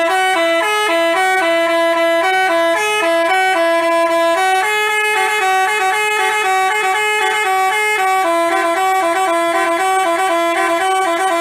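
Bus telolet horn, a multi-trumpet air horn of the Basuri type, playing a fast tune of short notes two pitches at a time. It starts and stops abruptly.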